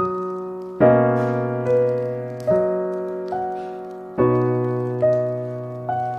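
Slow, gentle solo piano music: single notes and soft chords struck roughly once a second, each left to ring and fade before the next.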